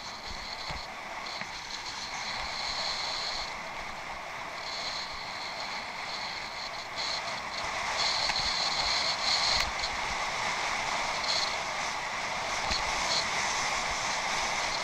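Bicycle being ridden over rough off-road ground: a steady noise of tyres and the bike rolling, with a high hiss that comes and goes, louder from about eight seconds in.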